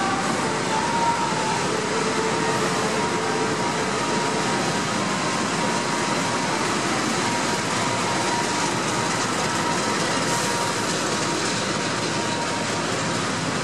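GE CC 206 (CM20EMP) diesel-electric locomotive running as it pulls into the station along the platform and passes close by, followed by its carriages rolling past; a steady, loud din of engine and wheels.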